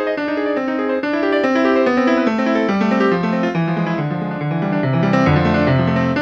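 Keyboard music played on sampled instrument sounds from an Ensoniq ASR-10 sampler, recorded direct from its outputs: a quick melodic line over a bass line that steps downward and settles on a low held note near the end.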